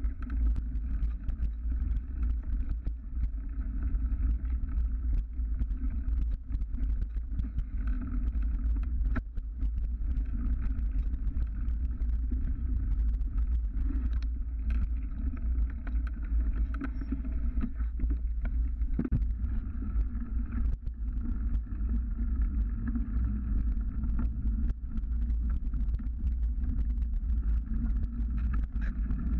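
A mountain bike rolling down a dirt trail, heard from a camera clamped to the handlebars: a steady low rumble of wind and tyres with constant small rattling clicks from the bike jolting over the ground.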